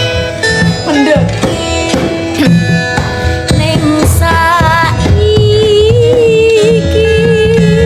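A campursari band playing live, with a kendang (Javanese barrel hand drum) beating under a melody. Near the middle the melody settles into one long, held, wavering note.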